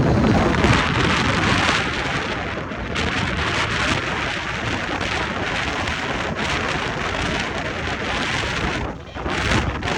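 Strong gusty wind buffeting the microphone. Under it, the rumble of a just-landed jet airliner fades away over the first couple of seconds.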